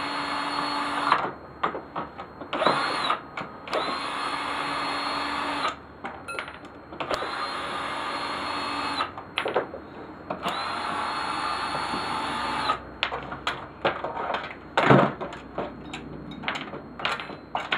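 A power drill-driver backing screws out of the mower's plastic housing, running in about five short spells of steady whine with clicks between them. Loose knocks and clatter of parts being handled follow near the end.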